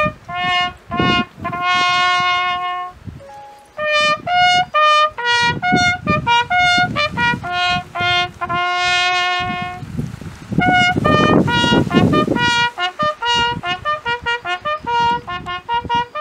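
Ceremonial bugle call played live on a brass horn: a run of short notes and long held notes jumping between the few pitches of the horn, sounded in salute to the dead.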